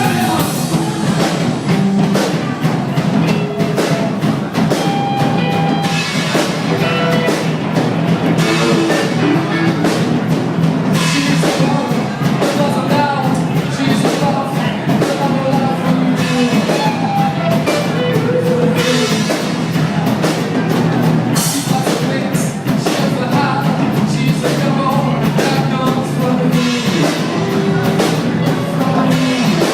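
A rock band playing, with a drum kit keeping a steady beat under guitar and a singer's melodic line.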